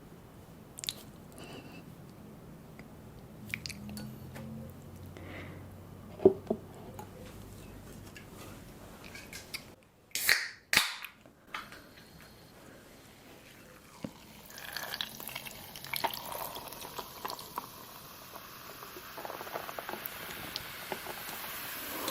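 Close-miked eating of spicy instant noodles: wet chewing and slurping, with scattered clicks and knocks of utensils against the dish. There is a loud double knock about halfway through, and a steady hiss joins about two thirds of the way in.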